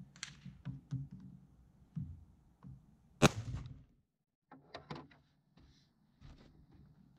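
Clicks and knocks of an AR-15 rifle being handled and loaded at the bench, with one sharp, much louder clack about three seconds in.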